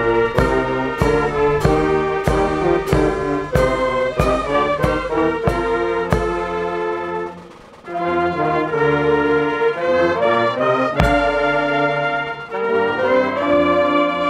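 Brass band music with a steady drum beat of about one stroke every 0.6 s. The music drops away briefly about halfway, then comes back in with a heavy stroke.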